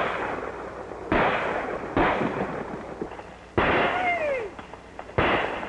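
A volley of gunshots from an old western film soundtrack: five sharp shots, roughly a second apart, each trailing off in an echo, with a few sliding whines among them near the end.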